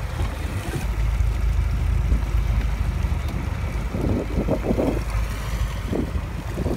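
Fishing boat's engine running with a steady low rumble over wash and wind noise on the microphone, with a few brief sharper sounds about four seconds in.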